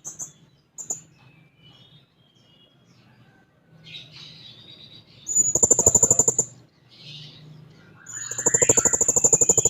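Serindit (hanging parrot) calling loudly. It gives two fast, rattling trills of about a second each, one midway through and one near the end, with soft chirps in between.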